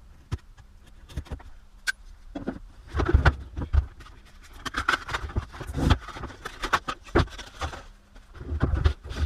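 Handling noise as the rotary tool kit is unpacked: irregular clicks, knocks and rustles, with louder bursts of bumping and rustling about three seconds in, around five to six seconds, and near the end.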